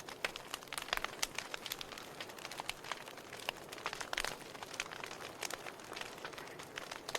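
Wood fire burning in a fireplace: a soft steady hiss with irregular crackles and snapping pops, a few louder pops about a second in and around four seconds in.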